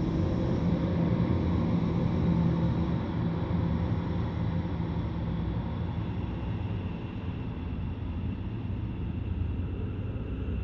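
Ambient synthesizer drone washed in reverb: a low, steady droning hum with faint high sustained tones above it, easing slightly in the second half.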